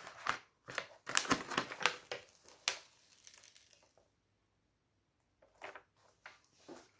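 Protective sheet of a diamond painting canvas being peeled back from its adhesive, the paper crinkling and rustling through the first three seconds, then a few faint rustles near the end.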